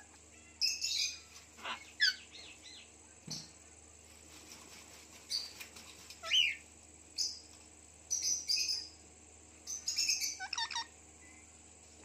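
Indian ringneck parakeets chirping and squawking in short, scattered calls, some sweeping up or down in pitch, with a quick run of calls about ten seconds in.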